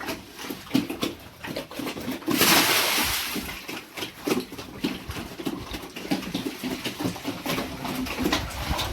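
Pigs grunting and feeding, with many small knocks and clicks, and a brief loud splash of water about two seconds in.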